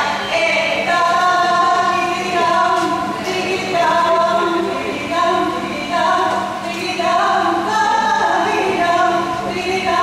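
A group of voices singing a cappella in unison: a slow song melody of held notes that step from pitch to pitch, the singing that accompanies the Gyond ritual line dance.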